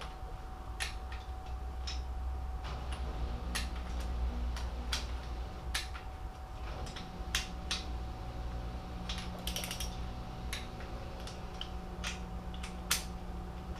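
Torque wrench ratcheting in short, irregular runs of sharp clicks as the exhaust manifold nuts are snugged down to 18 foot-pounds, over a steady low hum.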